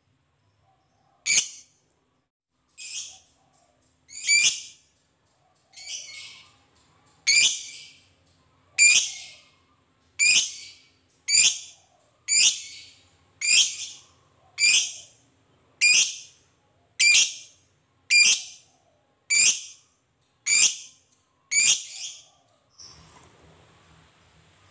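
Lovebird giving a string of shrill, high-pitched calls, about seventeen short ones, each a fraction of a second long, at first about one every second and a half and then a little faster, about one a second.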